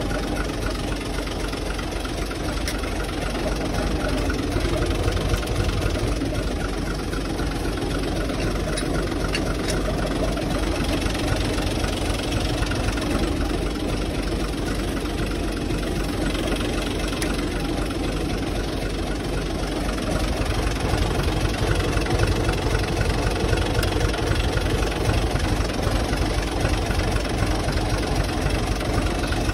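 Tractor diesel engine running steadily, swelling slightly in loudness a few times.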